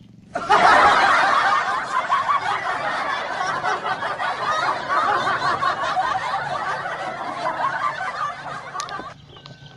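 Canned laughter from a crowd, many voices laughing together. It starts abruptly under a second in and cuts off just as abruptly about a second before the end.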